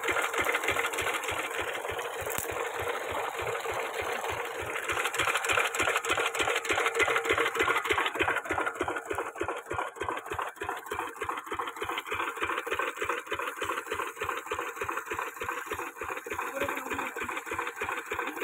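Lister 8 hp single-cylinder diesel engine running at a steady speed with an even beat of firing strokes, driving a water pump. About halfway through the sound turns duller and softer.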